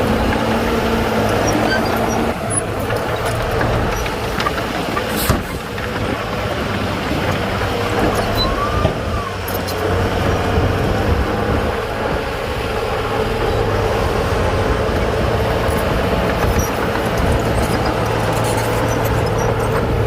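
Bulldozer's diesel engine running steadily, with a sharp knock about five seconds in.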